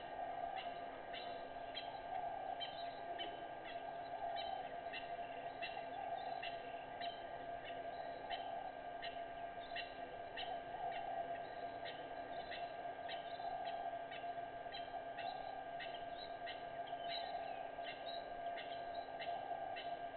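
Short high chirps repeating two or three times a second, over a steady drone of outdoor animal chorus at a waterhole.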